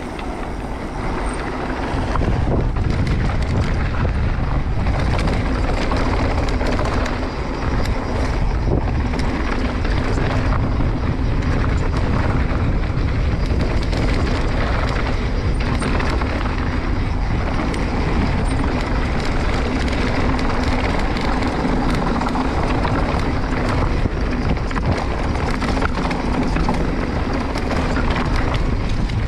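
Wind buffeting the microphone and a mountain bike's knobby tyres rolling over a dry dirt trail at descending speed, a steady loud rush that gets louder about two seconds in.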